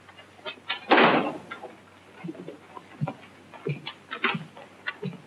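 A wooden door opening about a second in, the loudest sound, followed by scattered light knocks and clicks, over a low steady hum from the old film soundtrack.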